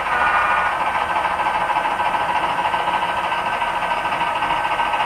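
Model train running along the layout track: a steady whir of its small motor and wheels on the rails.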